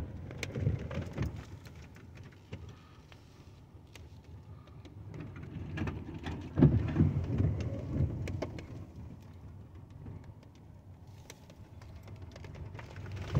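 Rain ticking on a pop-up camper's roof and canvas, heard from inside, over a low rumble, with a few dull thumps; the loudest thump comes about six and a half seconds in.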